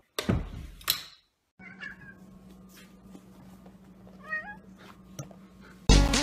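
A short loud rush of noise, then a house cat meowing twice, the second meow rising in pitch. Dance music starts near the end.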